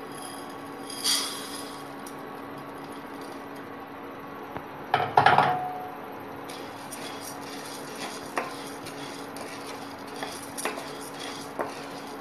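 Dry split chickpeas (chana dal) poured from a glass bowl into an empty non-stick wok, with a loud clatter of dal and bowl on the pan about five seconds in, then a spatula stirring the dal with scattered light taps and scrapes on the pan, over the steady hum of an induction cooktop.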